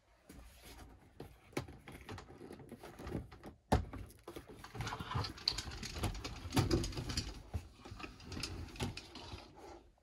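Accordion folding door being pulled along its track, its pleats clattering in a run of quick clicks and rattles, with a sharp knock a little under four seconds in.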